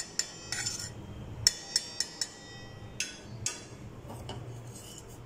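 Metal fork clinking and scraping against a stainless steel bowl while boiled potatoes and spices are broken up and mixed. About ten irregular clinks, each with a short metallic ring; the loudest comes about a second and a half in.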